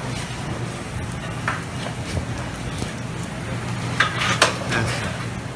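Food sizzling on a Mongolian barbecue flat-top griddle over a steady low hum, with metal utensils clacking against the griddle and two sharp clacks about four seconds in.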